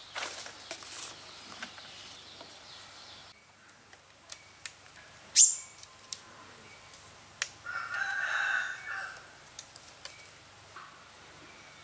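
Light knocks and rustles of thin sticks being handled and worked against wooden posts, with one sharp crack, the loudest sound, about halfway through. A rooster crows once, for about a second and a half, a little after the crack.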